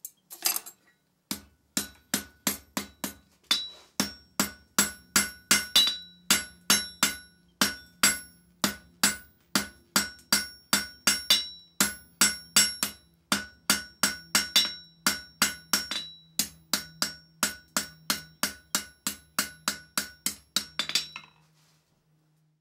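Hand hammer striking glowing hot steel on an anvil in a steady rhythm of about two blows a second, each blow with a bright metallic ring; the blows stop near the end. A low steady hum runs under them.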